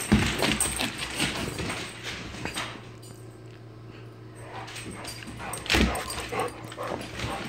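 A bullmastiff and a puppy playing on a hardwood floor: scuffling, knocks and dog noises, busiest in the first couple of seconds, with a loud knock about six seconds in.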